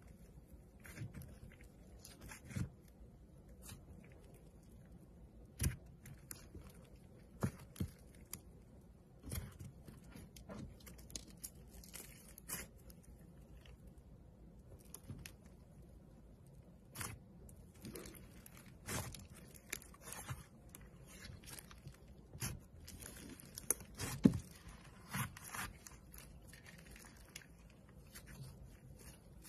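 Frosted sponge cake with sprinkles being squeezed and torn apart by hand: soft, irregular squishing and tearing with scattered sharp crackles and crunches.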